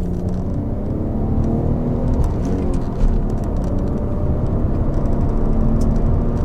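Peugeot 407 Coupe's V6 petrol engine pulling under hard acceleration, heard from inside the car, with a short break and jump in the sound about three seconds in. The engine is being pushed past about 3,500 rpm to bring out a hesitation and misfire.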